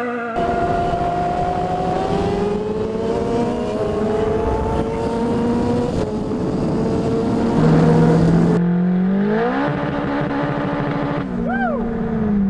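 Car engine revving and running under load in several short spliced clips, its pitch climbing and falling with each pull. Near the end comes a brief high whistle that sweeps up and down.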